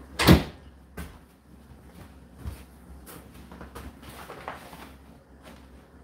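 A single loud, sharp knock about a third of a second in, followed by a couple of fainter clicks.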